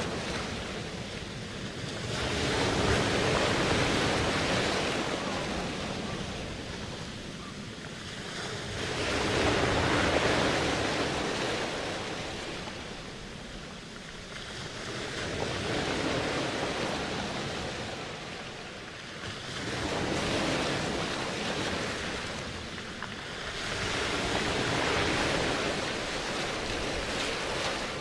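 Ocean surf: waves washing in and drawing back, the rush swelling and fading about every five to six seconds.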